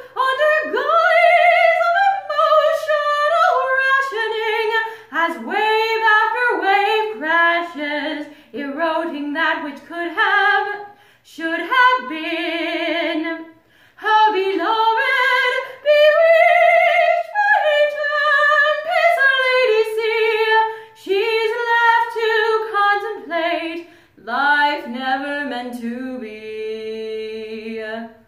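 A woman singing solo and unaccompanied, in sung phrases with short breaks between them. She uses vibrato on some held notes and ends on one long note held with vibrato.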